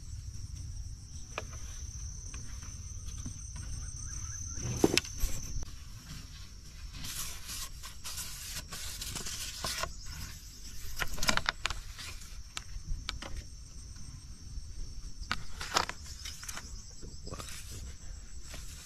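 Insects in a steady high-pitched drone that fades for a few seconds in the middle, with scattered rustles and knocks, the loudest about five seconds in and around eleven seconds.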